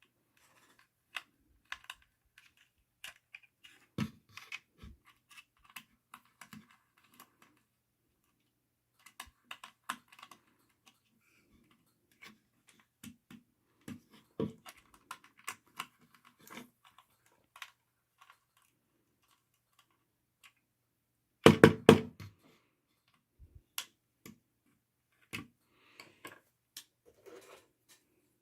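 Scattered small clicks, taps and knocks of a hard plastic toy being handled and worked at, as someone tries to pry a part out of it. A louder brief clatter comes about three quarters of the way through.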